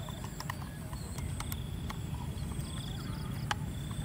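Screwdriver and plastic toy truck parts clicking and ticking as a screw is driven into the toy's plastic chassis: irregular sharp clicks, the strongest about three and a half seconds in, over a steady low rumble.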